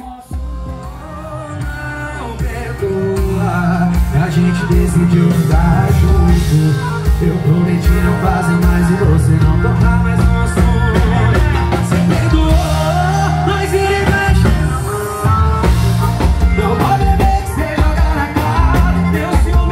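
Live band with sung vocals played through a large PA system with subwoofers: strong bass and drums under the singing, growing louder about three seconds in.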